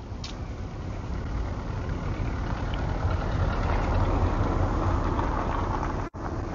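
A car driving past, its engine and tyre noise building over a few seconds and then easing slightly, over a low rumble; the sound cuts out for an instant near the end.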